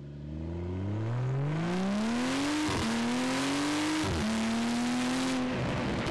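A car engine accelerating hard through the gears: its pitch climbs, drops sharply at two quick upshifts and climbs again, then breaks into exhaust crackle and pops near the end as the throttle comes off.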